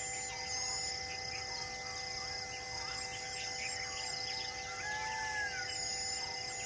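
Many birds chirping and whistling, one with a longer sliding whistle about five seconds in, over a steady insect buzz that comes and goes. A few low, even tones are held unchanged underneath.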